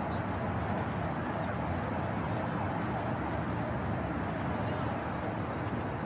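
Urban park ambience: a steady hum of city traffic with faint, indistinct voices.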